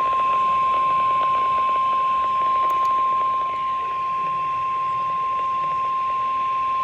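NOAA Weather Radio 1050 Hz warning alarm tone: one steady, unbroken high beep heard through a radio receiver over faint static hiss. It signals that a National Weather Service alert, here a severe thunderstorm watch, is about to be read.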